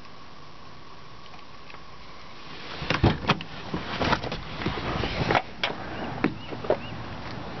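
Irregular knocks, clicks and rustling of someone getting out of a car through its door, starting about three seconds in after a quiet start.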